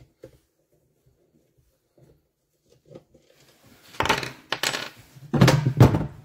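Metal engine parts and tools clattering on a workbench while a scooter engine is taken apart. A few faint ticks come first, then loud clanks about four seconds in, with the heaviest rattle near the end.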